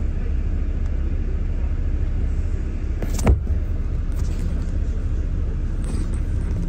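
Steady low rumble of a double-decker bus, engine and road noise heard from inside on the upper deck, with a single sharp knock about three seconds in.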